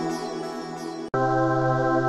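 Background music with soft, sustained ambient chords that fade. About a second in the music breaks off abruptly and a new chord starts.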